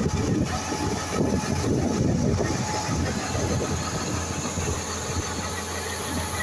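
Heavy harvesting machinery running steadily with a continuous low mechanical rumble.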